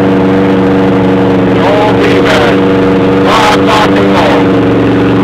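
Yamaha V-Max V4 motorcycle engine running at a steady speed, the engine of a bike with a knocking connecting rod.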